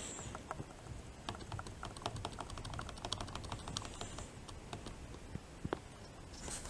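Small plastic push buttons on a digital programmable timer being pressed. A quick run of clicks, several a second, steps the hour setting, followed by a few single clicks, one sharper near the end.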